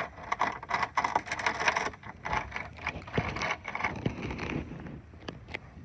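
Irregular scraping, rustling and clicking of hands and objects being handled under a car, dense for the first four and a half seconds or so, then a few separate sharp clicks near the end.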